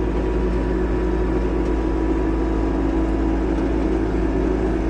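Heavy farm machine's diesel engine running steadily at an even pace, a constant hum with a faint steady whine over it.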